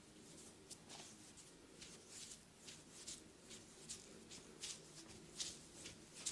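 Soft swishes of hands rubbing over skin in massage strokes, repeating about twice a second and growing a little louder toward the end.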